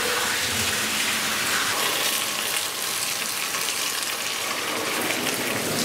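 Molten lead pouring from a tilted melting pot into a steel keel mold, casting lead ballast: a steady hiss with no let-up.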